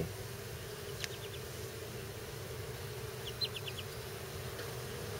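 Honeybees buzzing around an open hive, a steady low hum from a colony disturbed by the inspection. A couple of faint clicks come about a second in, and a short run of faint high ticks a little past the middle.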